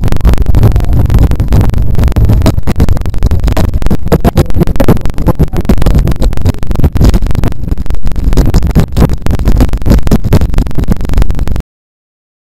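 Heavy wind buffeting on a bike-mounted camera's microphone at racing speed, a loud, constant rumble full of rapid gusty thumps. The sound cuts off abruptly to silence near the end.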